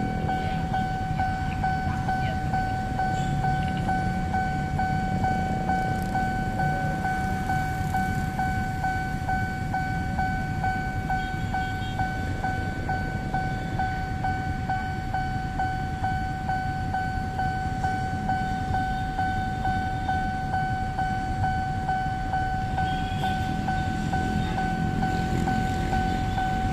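Railway level-crossing warning alarm sounding one steady high tone without a break, over the low rumble of idling motorcycle and bus engines waiting at the lowered barrier.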